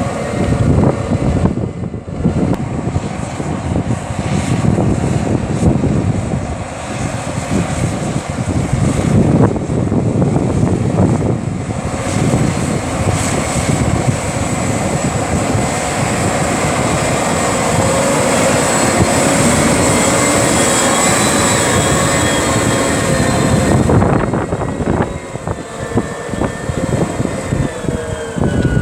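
Case Magnum 380 tractor's six-cylinder diesel engine running under load as it pulls a seven-furrow reversible plough: a steady drone with a thin high whine above it, dropping somewhat near the end.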